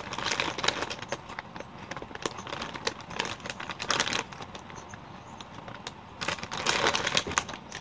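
Plastic Takis chip bag crinkling in three bouts as a hand rummages in it for chips, with a crackle of short clicks.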